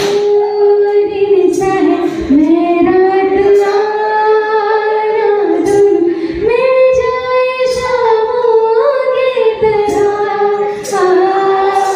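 A vocal group singing slow, long-held notes, each sustained for a second or more.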